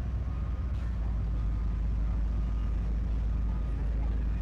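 Competition 4x4 truck's engine running steadily at low pitch, with no clear rises in revs.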